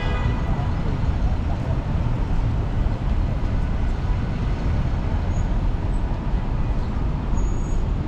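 City street noise: a steady wash of road traffic, with a low rumble of wind buffeting the microphone.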